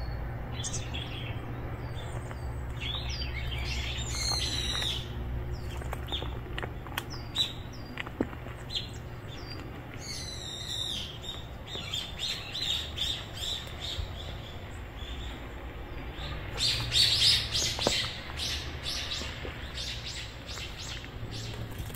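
Wild birds chirping and calling in short, scattered high calls, with a couple of quick falling chirp series and the loudest burst of calls about two-thirds of the way in. A steady low hum runs underneath.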